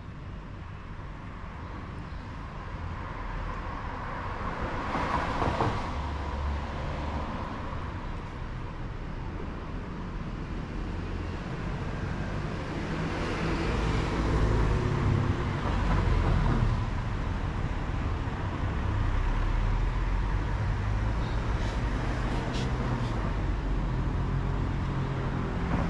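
Street traffic: a steady low rumble of passing cars, swelling louder twice as vehicles go by.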